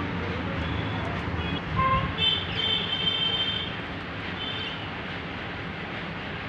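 Budgies giving a few short, high chirps over a steady background rumble.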